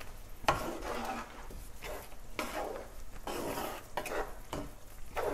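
Wooden spatula stirring and scraping a thick, sticky beetroot halwa mixture around a nonstick frying pan in repeated strokes, with the odd knock of the spatula against the pan.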